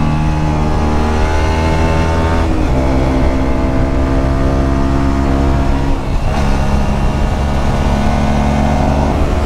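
A KTM 125 Duke's single-cylinder engine, through a LeoVince exhaust with the dB killer removed, pulling under acceleration. Its pitch climbs steadily and drops with an upshift about two and a half seconds in. It dips again around six seconds in, then climbs again.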